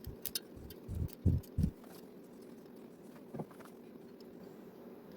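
Handling noise of a plastic zip tie being fitted onto a bicycle: a few light clicks, then three dull low knocks about a second in, and a small click later, over a steady low hum.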